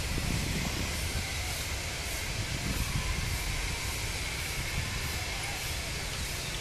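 Steady hiss and low rumble of an approaching Pacific-type steam locomotive still some distance off.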